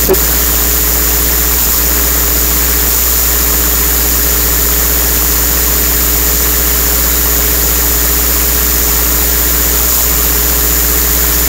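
Loud, steady electrical hum and hiss that switches in and out abruptly in place of the speech: the programme's audio has dropped out, leaving only noise from the recording chain.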